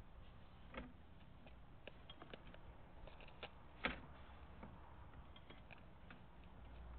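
Faint, irregular clicks and taps from a sewer inspection camera being pushed along a PVC drain pipe, over a low steady hum, with one sharper knock about four seconds in.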